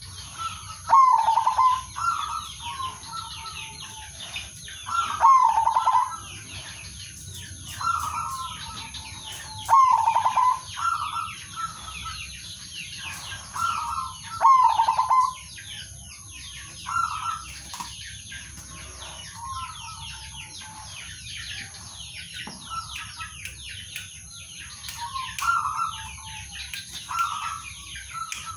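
Male zebra dove cooing: short rolling coo phrases repeated about every four to five seconds, loud through the first half and softer, more scattered phrases later. A constant thin high chirping runs underneath.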